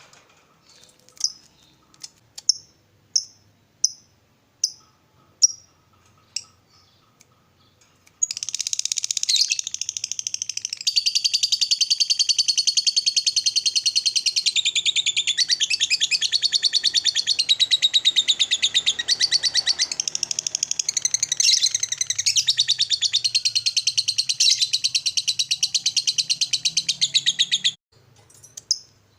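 Lovebird ngekek: a run of short single chirps less than a second apart, then one long unbroken rapid chattering trill of about twenty seconds that cuts off suddenly near the end. The long ngekek is the song Indonesian keepers play to rile other lovebirds into answering.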